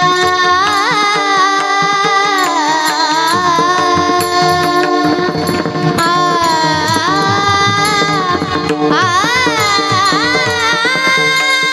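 Marathi kirtan tune sung by a girl's voice, with long wavering ornamented notes over a steady held drone and tabla.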